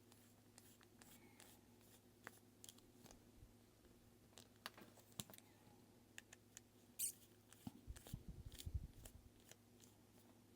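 Faint, scattered small clicks and ticks of a screwdriver working the small screws out of a G-Shock watch, with a short rustle about seven seconds in and a run of soft handling bumps just after.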